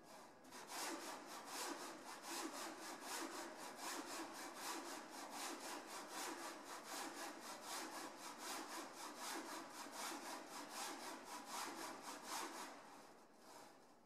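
Cart drive of a motor-driven double-pendulum rig running as the cart shuttles along its linear rail under feedback control, a rhythmic rasping with about four pulses a second over a steady hum. It starts about a second in and dies down near the end.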